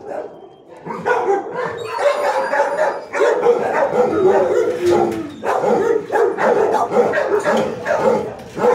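Many kennel dogs barking, yipping and howling together in a continuous, overlapping din. It dips briefly at the start and picks up again about a second in.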